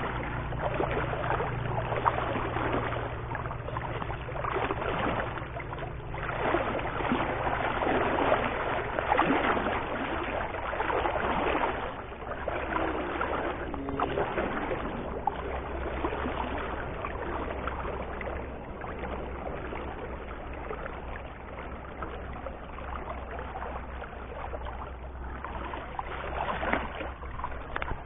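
River water lapping and sloshing against a small boat's hull, a crackly rushing that is louder in the first half and eases after, over a steady low hum.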